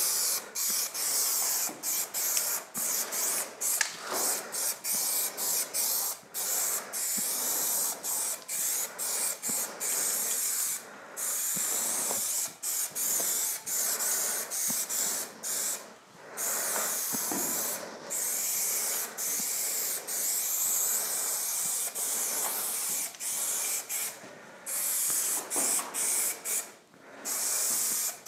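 Aerosol spray-paint can spraying: a quick run of short bursts, then longer steady sprays a few seconds each, broken by brief pauses.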